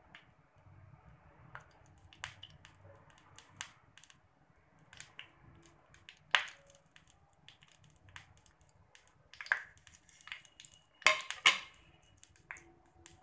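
Mustard seeds popping and spluttering in hot coconut oil in a small pan: irregular sharp pops over a faint sizzle, with a few louder pops past the middle. It is the tempering stage, the seeds crackling once the oil is hot enough.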